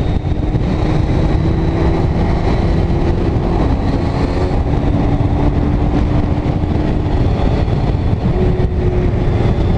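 Sport motorcycle engine running under acceleration, heard from the rider's seat over heavy wind rumble. Its note climbs, drops about three and a half seconds in at a gear change, holds, and steps higher again near the end.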